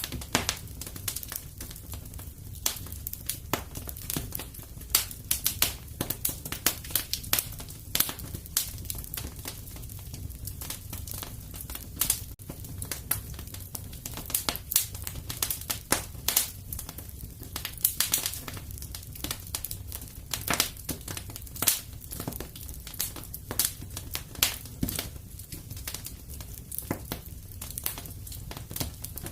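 Fireplace fire crackling: frequent irregular sharp pops and snaps, several a second, over a steady low rumble.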